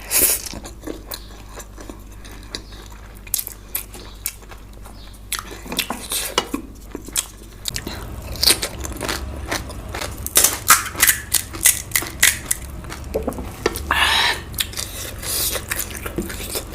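Close-miked eating: chewing and biting mouth sounds, with irregular clicks and clinks of cutlery on a plate or bowl, busier in the second half.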